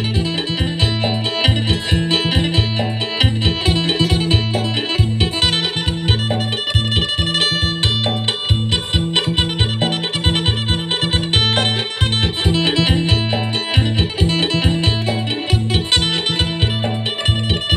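Acoustic phin, the Isan Thai plucked lute, playing a fast, bright melody in the lively sing style over a pulsing low bass line.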